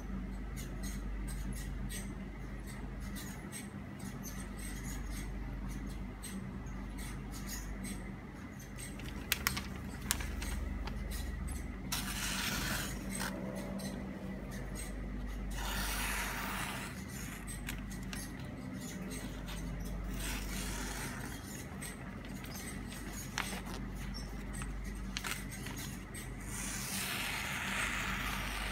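A freshly sharpened carbon-steel Chinese cleaver slicing through glossy catalogue paper, a paper test of the new edge. Four separate cuts in the second half, each about a second of papery hiss, with pauses between them.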